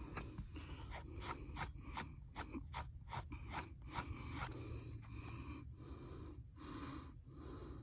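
A man breathing heavily close to the microphone in short, uneven puffs, quicker at first and slower and longer toward the end, over a faint low rumble.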